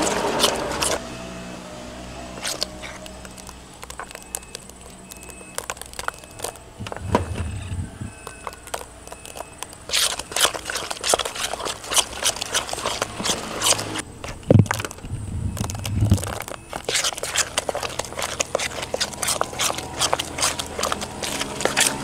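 Hand squeezing and mixing moist grated-corn batter in a plastic bowl: wet squishing with many quick crackling clicks, thickest in the second half, and a few low thumps.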